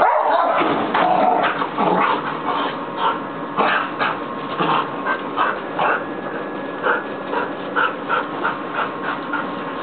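Border collie making a rapid, irregular run of short vocal sounds, spacing out to about two or three a second in the second half.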